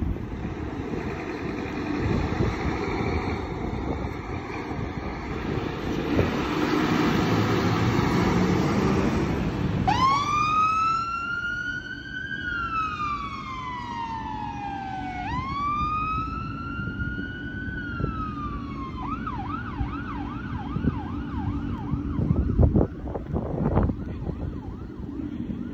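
A Scania fire engine's electronic siren starts about ten seconds in over engine and road noise. It sounds two slow wail cycles, each rising then falling over about five seconds, then switches to a rapid yelp of about three sweeps a second, which fades out as the engine drives away.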